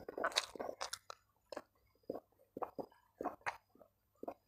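A person chewing a mouthful of rice and shredded chicken eaten by hand, with crunchy bites in an irregular run of short strokes.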